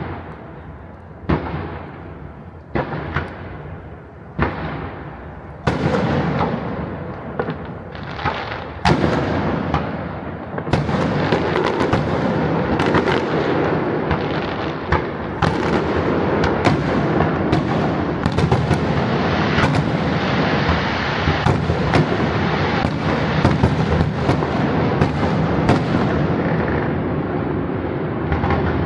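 Fireworks exploding: a few separate bangs with rolling echoes at first, building from about six seconds in into a dense, continuous barrage of overlapping bangs and crackles.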